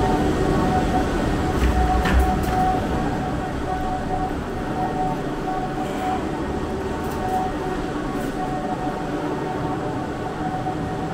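Wire-mesh pet cart being wheeled over a hard floor, its small wheels rumbling and the metal cage rattling steadily, a little quieter after the first few seconds.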